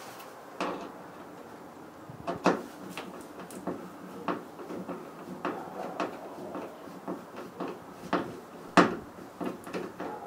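Irregular clicks and knocks of a hand screwdriver and fingers working the screws along the bottom of a van's sliding-door trim panel. A sharp knock comes about two and a half seconds in and a louder one near the end.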